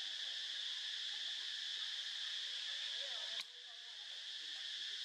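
Steady, high-pitched drone of insects, with faint wavering calls underneath. About three and a half seconds in, it cuts off with a click and fades back up.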